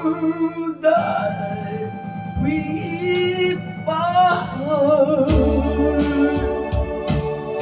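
Music: a slow ballad with a voice holding long, wavering notes over guitar and organ chords.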